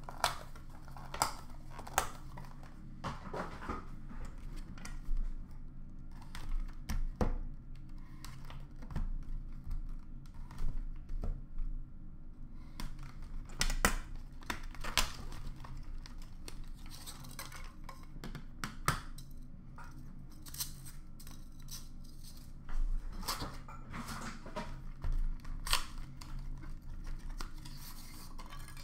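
Hands opening a hockey card box and handling the packs and cards inside: scattered clicks, taps and rustles of cardboard and wrappers, with some tearing, over a steady low hum.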